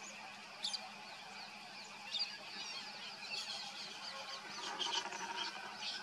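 Small birds chirping and twittering in short, high calls: a sharp call a little under a second in, then bunches of chirps around two, three and a half and five seconds.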